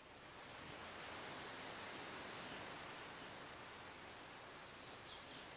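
Faint, steady hiss of background noise with no distinct events.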